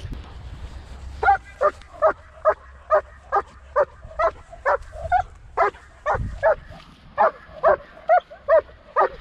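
German Shepherd barking in a steady rhythm, about two short barks a second, starting about a second in. This is protection-work barking: the leashed dog is barking at the decoy holding the bite sleeve.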